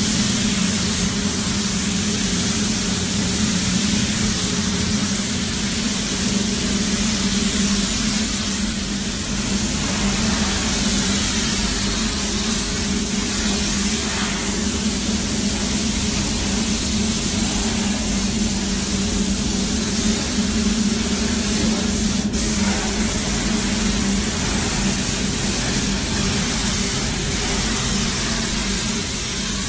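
Compressed-air paint spray gun hissing steadily as it sprays automotive paint onto a car body, with a steady low hum underneath. A single sharp click comes about two-thirds of the way through.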